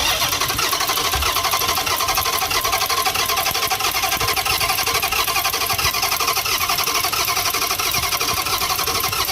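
Dodge Challenger engine running steadily with a fast, even pulsing. It cuts in abruptly. The car is under diagnosis for a misfire.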